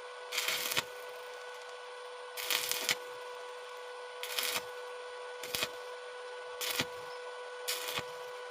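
Stick-welding arc on thin sheet metal struck in short bursts: six brief crackling sizzles about a second apart, the arc made and broken repeatedly so the thin metal does not burn through. A steady hum runs underneath.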